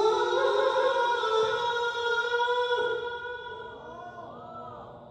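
A male Qur'an reciter chanting in melodic tilawah style, holding one long, high note on the end of "wa tawakkal ʿalā". The note stops about three seconds in and dies away in a long echo.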